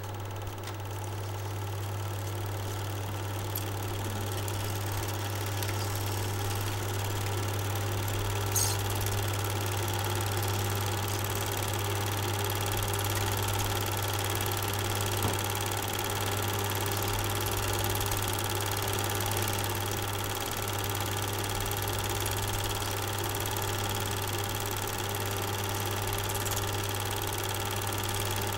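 Steady whirring hum of a Super 8 film projector running, with a strong low drone under it and a single faint click about eight and a half seconds in.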